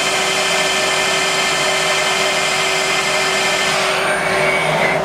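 Cubic Diamond 32B CNC Swiss-type lathe running a machining cycle: a steady machine whine with several held tones over a hiss. About four seconds in, the high hiss briefly thins out.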